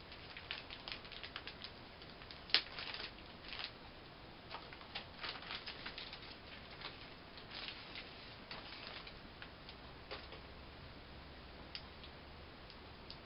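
Irregular crackling and clicking of plastic packaging being handled around a replacement laptop LCD screen as it is unwrapped. There is a sharper click about two and a half seconds in, and the sounds thin to a few scattered clicks for the last few seconds.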